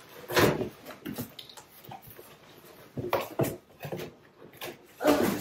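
Cardboard shipping box being rummaged through by hand: irregular rustling, scraping and light knocks of the flaps and packed items, with a louder burst near the end.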